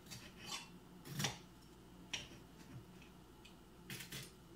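Knife and fork clicking and scraping on a plate while cutting through toast topped with scrambled eggs: a handful of short, separate clicks, the loudest about a second in.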